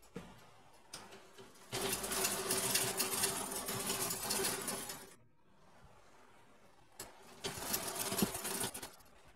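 A small motor whirring with a rushing hiss, in two runs: one of about three seconds starting under two seconds in, and a shorter one near the end.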